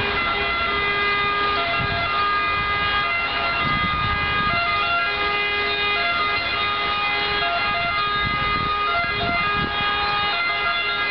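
Gusts of wind rumbling on the microphone, under several overlapping sustained steady tones that change pitch in steps.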